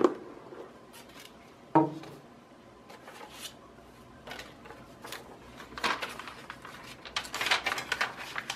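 Cardboard gift box being opened: the lid is lifted off and set down with a single knock about two seconds in, then tissue wrapping paper crinkles and rustles as it is folded back, busiest near the end.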